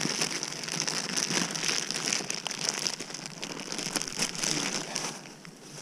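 Aluminium foil crinkling and rustling as a hand digs a piece of chicken out of a foil wrap. The rustling dies down near the end.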